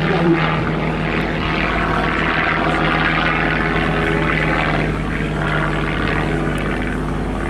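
Propeller-driven biplane flying overhead, its piston engine running with a steady drone.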